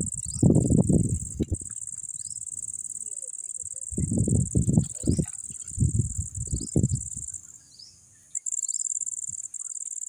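Steady high-pitched chorus of crickets that stops for about a second near the end, with faint short chirps from birds. Several loud, low, muffled bursts stand out above it.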